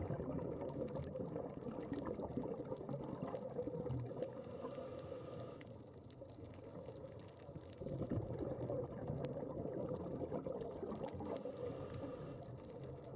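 Underwater sound picked up by a camera on a coral reef: a muffled, steady wash of water with a few faint clicks, and twice a short stretch of brighter hiss.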